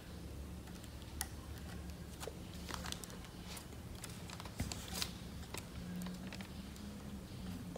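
Faint, irregular small clicks and rustles of fingers handling and twisting the ceiling fan's wires and plastic fittings at the motor's terminal, over a faint steady low hum.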